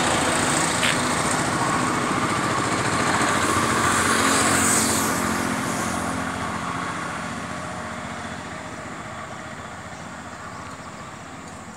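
A passing motor vehicle with a small, high-revving engine, loudest about four to five seconds in and then fading away.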